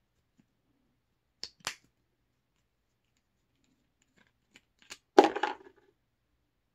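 Handling a plastic shave-butter bottle: two sharp clicks of its flip-top cap about a second and a half in, then a few light clicks and a short, loud clatter about five seconds in.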